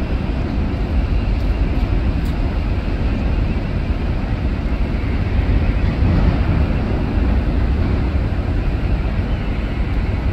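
Steady low rumble of wind on the microphone out on an open ship deck, with no distinct events in it.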